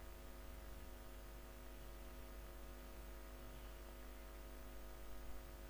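A steady low electrical hum with a faint hiss underneath, and a brief faint knock about five seconds in.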